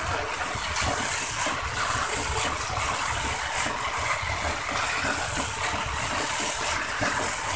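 A spatula stirring and scraping fried khichuri (rice and lentils) in a marble-coated nonstick pot: repeated scrapes with the grains rustling against the pot, over a steady low rumble.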